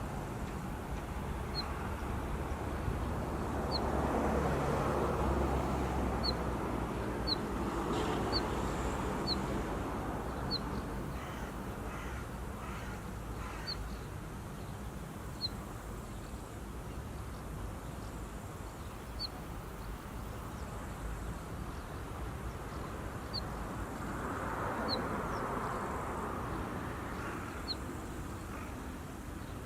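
Northern wheatear giving its short, thin, rising 'hweet' call over and over, one note every second or two, the call adult wheatears make around their nest and fledglings. A crow caws a few times near the middle, and a low rushing noise swells up twice, early and near the end.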